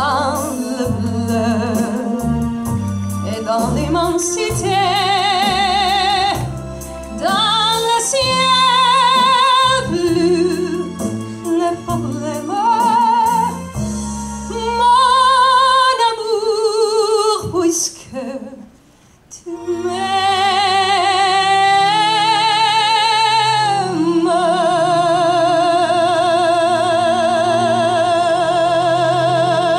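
Female opera singer singing with wide vibrato into a handheld microphone over instrumental accompaniment, with a short break about two-thirds of the way through, then a long held high note near the end.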